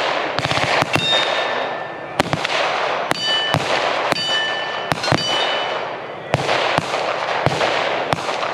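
Gunfire from several guns: single shots at irregular intervals and a short rapid burst about half a second in. Several shots are followed by a brief high metallic ping.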